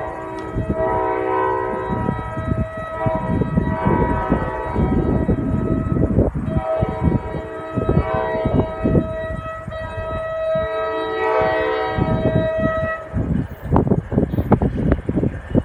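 New Jersey Transit train's multi-chime air horn sounding two long held blasts, the first breaking off about six seconds in and the second ending about thirteen seconds in. Low rumbling train noise runs underneath and carries on alone near the end.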